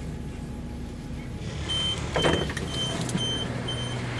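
Train passenger door opening after its button is pressed: a rush of the door sliding open about two seconds in, with short high door-warning beeps repeating about twice a second. The low hum of the standing train is underneath.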